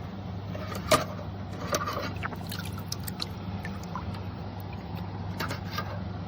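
Small electric pump of a pet water fountain humming steadily while water trickles, with a few light clicks and knocks, the sharpest about a second in.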